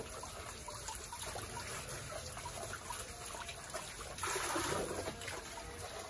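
Water trickling from an outdoor wall tap into a small plastic container, with a louder pour about four seconds in.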